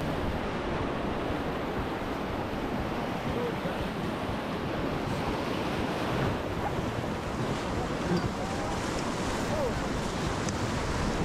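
River water rushing steadily around a raft, with wind buffeting the microphone.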